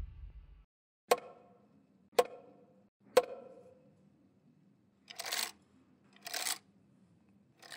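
Yu, a wooden percussion instrument carved as a crouching tiger: struck three times with a long stick about a second apart, each knock ringing briefly. Then the stick is scraped three times along the serrated ridge of its back, the traditional signal that ritual music has ended.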